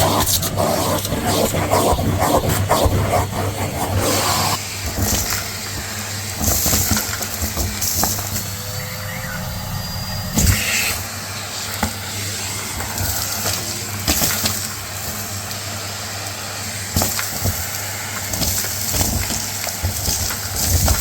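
Numatic Hetty cylinder vacuum cleaner running steadily while sucking up a crunchy homemade dirt mix through its tool, grit crackling and clicking as it is drawn in. The crackling is dense for the first few seconds, then thins to scattered clicks over the motor's hum.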